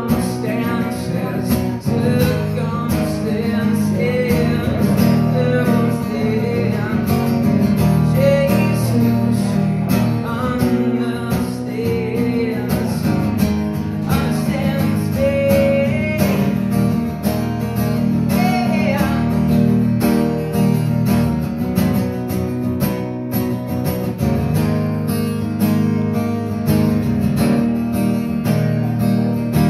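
A solo male singer performing live, singing over a strummed acoustic guitar. The singing is clearest through the first two-thirds, with steady strumming throughout.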